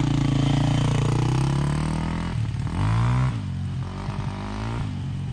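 Dual-sport motorcycle engine running hard as the bike rides up and past, with a burst of revving about three seconds in, then easing off.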